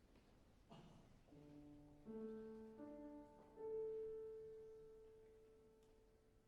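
A few piano notes struck one after another, stacking into a soft chord that rings and slowly fades, after a faint knock.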